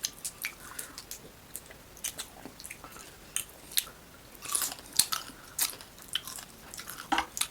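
Close-up mouth sounds of chewing and biting into lightly fried crab: irregular crunches, clicks and wet smacks, with a denser cluster of crunches about halfway through.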